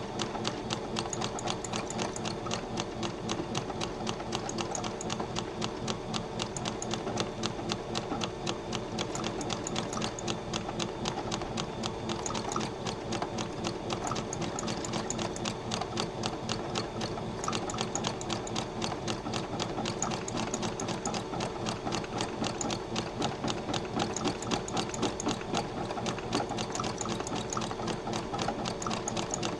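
Electric sewing machine stitching continuously through needlepoint canvas, its needle going in a fast, even run of strokes as the canvas is guided under it for thread painting.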